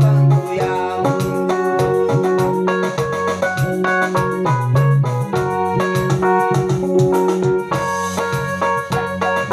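Instrumental music on an electronic keyboard with a piano-and-organ sound: a quick run of chords and notes over held bass notes.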